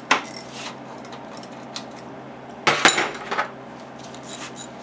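Metal hand tools clinking as a socket, extension and ratchet are handled and fitted: a sharp click right at the start, a loud cluster of clinks about two and a half seconds in, then a few lighter ticks, over a steady low hum.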